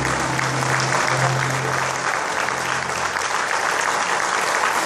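Audience applauding steadily in a concert hall, while the folk band's last held low note fades out over the first few seconds.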